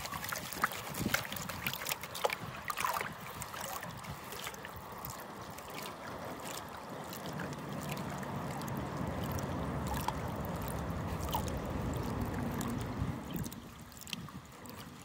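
Plastic gold pan being swirled in river water: water sloshing and washing over the pan's riffles as sluice concentrates are panned down to black sand. Scattered sharp clicks in the first few seconds, the sloshing fuller in the middle and easing off near the end.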